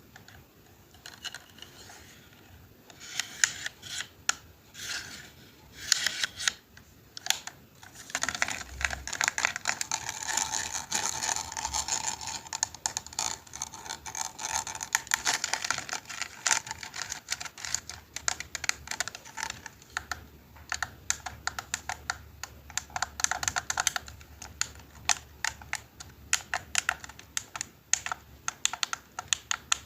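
Fast clicking and tapping of small keys or buttons, like typing, scattered at first and then a dense, rapid run from about eight seconds in.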